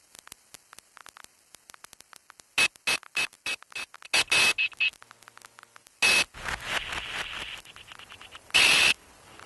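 Static-interference sound effect: sparse crackling clicks, then from about two and a half seconds in, loud choppy bursts of hissing static with a high beep-like tone in them. The longest burst comes near the end.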